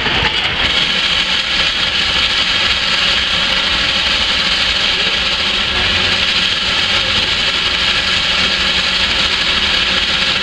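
Antique steam shovels at work, their steam engines running with a steady hiss of venting steam.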